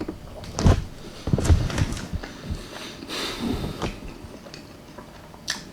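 Close-miked eating sounds of a person chewing a mouthful of baked chicken breast with tomato paste and mozzarella: scattered soft clicks and wet mouth noises, with a breath through the nose about three seconds in.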